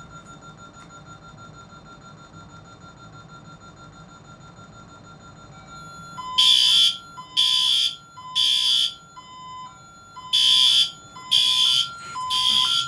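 Honeywell Vista 20P alarm system going off when the entry delay runs out without a disarm. A steady tone sounds at first; about six seconds in, loud piercing alarm beeps start in groups of three, over a lower two-note tone that alternates back and forth.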